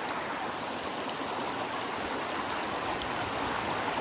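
River water rushing steadily over the stream bed.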